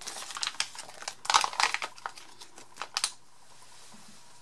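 Clear plastic bag crinkling as it is handled and tucked underneath the album, a run of quick crackles that stops about three seconds in.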